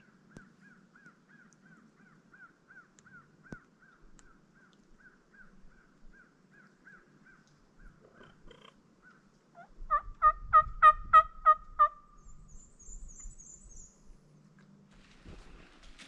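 A wild turkey gobbles once about ten seconds in: a loud, rapid rattling run of notes lasting about two seconds. Before it, a faint steady series of repeated chirping bird notes runs for about nine seconds. A short high-pitched bird trill follows the gobble.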